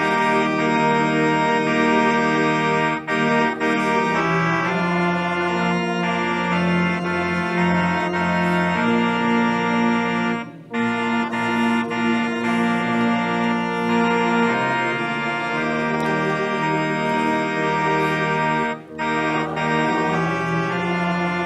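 Organ playing a slow piece in long sustained chords, breaking off briefly between phrases about every eight seconds.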